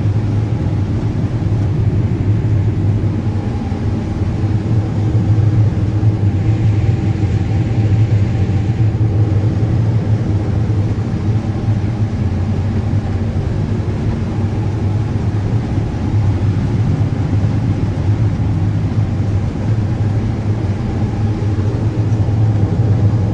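Combine harvester running steadily while shelling corn: an even, low engine hum that does not change through the stretch.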